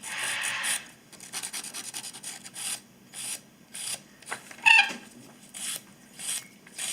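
A fingernail file rasping in short, quick strokes, about two a second, filing down a Patagonian conure's overgrown beak. About two-thirds of the way through the bird gives one short, loud high-pitched squawk.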